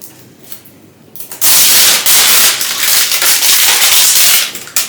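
Protective plastic film being peeled off and crumpled: a loud crinkling rustle that starts about a second and a half in and stops just before the end.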